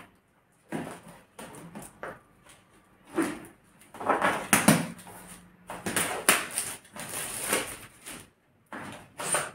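Cardboard speaker box being handled and opened, the inner tray sliding out of its sleeve: a series of irregular rustles, scrapes and light knocks of cardboard.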